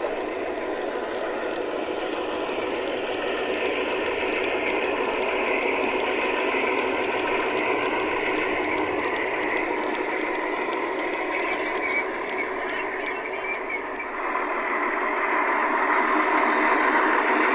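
G-scale model trains running on garden track: a steady mechanical rattle of wheels and motors with fine ticking. The sound changes suddenly about 14 seconds in, then grows a little louder as a diesel shunter model passes close.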